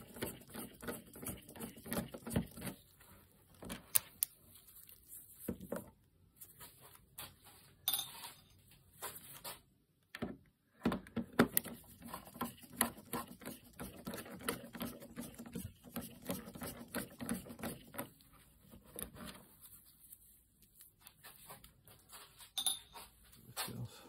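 Screwdriver working the screws of a motorcycle fuel tank's filler-cap ring: many irregular small metallic clicks and scrapes, with a short pause about ten seconds in.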